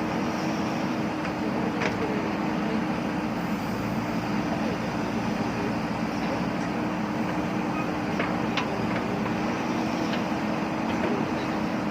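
JCB backhoe loader's diesel engine running at a steady speed, with a couple of faint metallic clinks from the machine.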